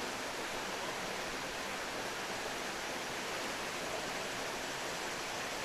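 Waterfall pouring, a steady rushing of falling water.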